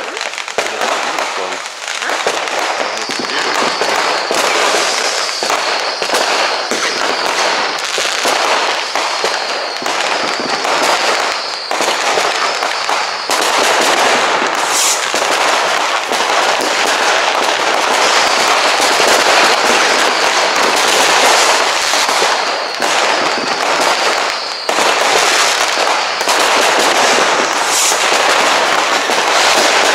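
Many fireworks going off at once: a dense, continuous crackle of firecrackers and bangs, with a high whistle sounding on and off.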